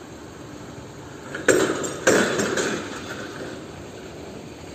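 Two clanks of metal striking metal, about half a second apart, each ringing briefly.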